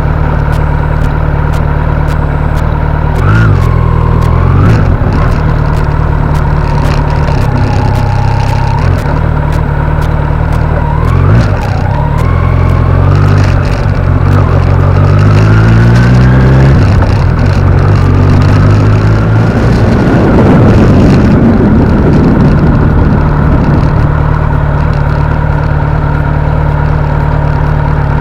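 Kawasaki Z900's inline-four engine running under way, held at a steady note for long stretches and several times rising in pitch as it is revved up through the gears, then falling back. The longest climb comes in the middle, followed by a brief rush of noise.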